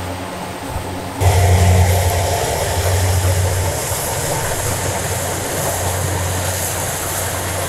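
Farm machine engine running steadily with a low hum, getting suddenly louder about a second in.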